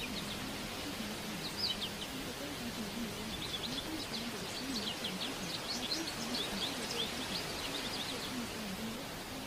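Recorded birdsong, many short chirps, over a steady background hiss, growing busier after a few seconds. Beneath it a faint low voice wavers, the masked affirmations of a subliminal track.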